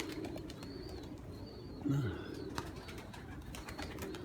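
Domestic pigeons cooing, with one clearer low, falling coo about two seconds in.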